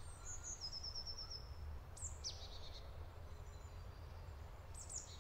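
Woodland birds calling: a quick run of about seven high chirps early on, a fast downward-sweeping call about two seconds in, and another short call near the end, over a steady low rumble.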